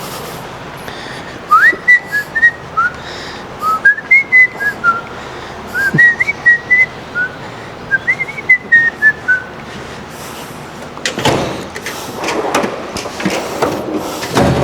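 A person whistling a tune: short sliding notes in four or five phrases over several seconds. Near the end come a few seconds of clattering and knocking.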